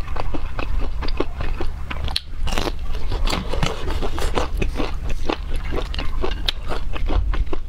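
Close-miked chewing of crisp, breadcrumb-coated fried food: a dense, irregular run of crunches and wet mouth clicks.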